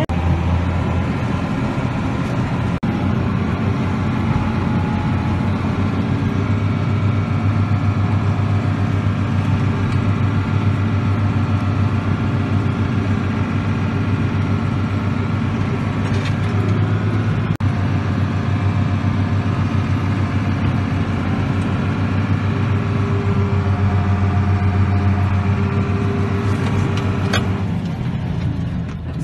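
Tractor engine running steadily, heard from the driver's seat.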